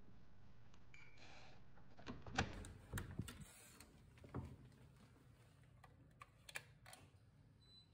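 Hotel room door latch clicking and the door pushed open, with a few sharp knocks in the first half, then several small clicks from the wall light switches near the end.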